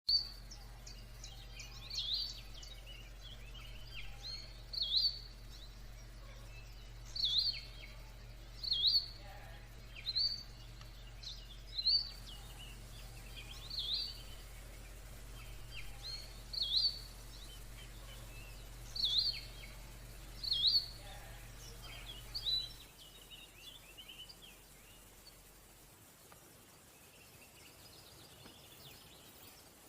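Birds chirping: one bird repeats a short, sharp call every second or two, with fainter chirps from others in between. A low steady hum runs underneath and stops about three-quarters of the way through.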